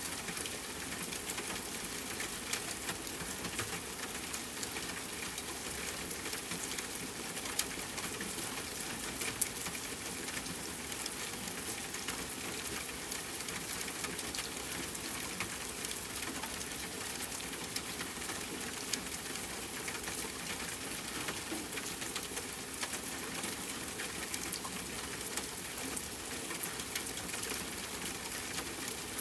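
Steady rain: a continuous hiss, dense with the ticks of individual drops, a few of them louder.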